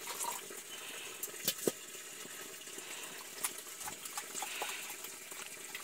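Black tea being poured from a pot into a plastic cup, faint and trickling, with scattered light clicks from the pot and cups being handled.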